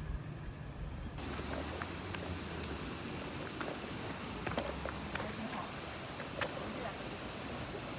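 Steady, high-pitched chorus of insects that starts suddenly about a second in, with a few faint scattered taps beneath it.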